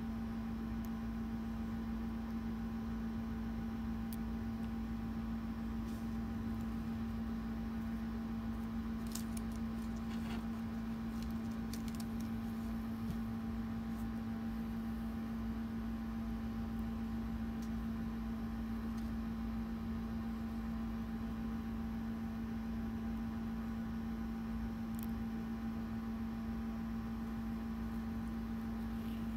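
A steady low electrical hum with faint room noise. A few faint light clicks come about a third of the way in and once more near the end, from seed beads and a needle being handled.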